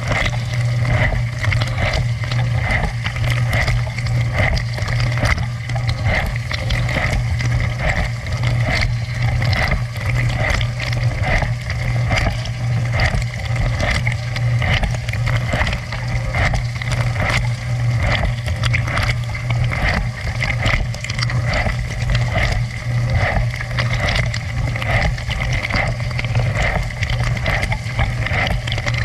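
Dishwasher running its wash cycle: a steady low hum from the circulation pump motor under continuous spraying and splashing of water inside the tub.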